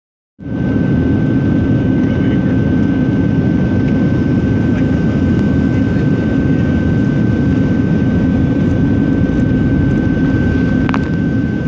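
Steady cabin noise inside a Boeing 737-700 in flight: the CFM56-7B turbofan engines and the airflow over the fuselage make a deep, even roar, with a thin, steady high whine above it.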